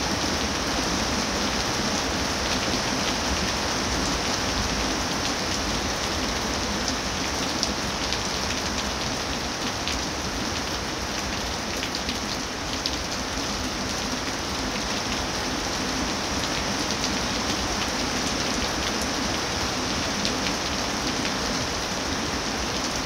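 Steady rain falling on leafy trees, with scattered individual drops ticking close by.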